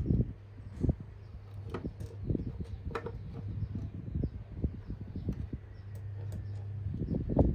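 Small plastic building bricks being handled and pressed together: irregular clicks and soft knocks over a steady low hum.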